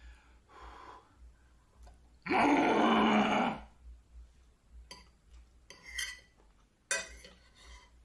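A person's loud non-speech vocal sound, lasting just over a second, a little past two seconds in, with faint short clicks and rustles around it.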